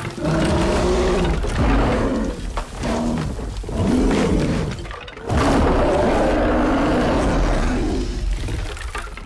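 A loud roar like a large animal's: two long, rough calls with a short break about five seconds in, fading near the end.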